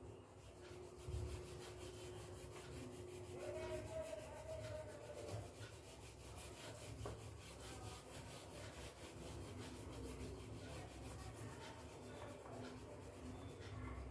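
Faint rubbing of a black oil pastel stick on paper as an area is coloured in.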